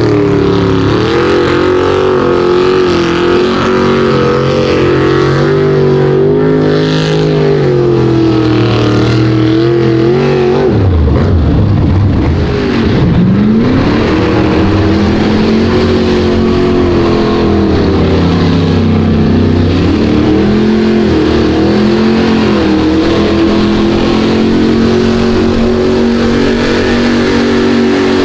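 A mega truck's big engine revving hard through a mud bog pit, its pitch wavering up and down as the tyres churn. It drops away sharply about eleven seconds in, then climbs again and holds high.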